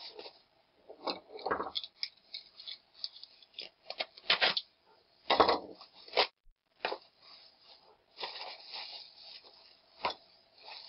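Plastic bags, bubble wrap and a padded paper envelope being handled and opened: irregular bursts of crinkling and rustling, with a few sharp clicks, the loudest stretch a few seconds in.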